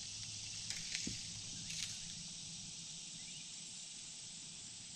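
Quiet outdoor ambience: a steady high hiss with a low hum beneath it, and a few faint clicks about one and two seconds in.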